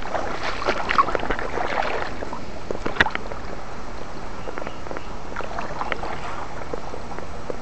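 River water sloshing and splashing close to the camera, with scattered small clicks and one sharp knock about three seconds in.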